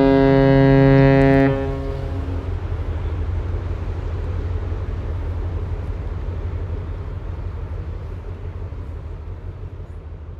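The ASTORIA's classic ship's horn, the original horn fitted when she was built in 1948 as the STOCKHOLM, holds one deep, steady note and cuts off about a second and a half in. A low rumble lingers after it and slowly fades away.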